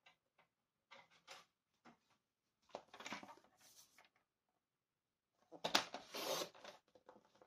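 Card and paper being handled and trimmed on a sliding-blade paper trimmer: small clicks and rustles, a brief scraping slide about three seconds in, and a louder scraping cut lasting about a second a little before the end.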